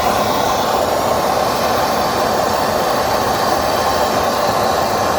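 Soldering torch flame burning with a loud, steady rush while heating a copper pipe elbow to re-solder the joint; it starts abruptly and stays even throughout.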